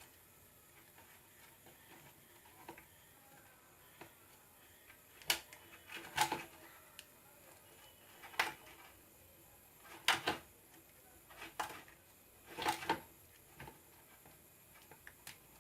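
Scattered small clicks and taps from handling wires and a mixer grinder's speed switch while connecting its terminals, with about five sharper knocks in the middle.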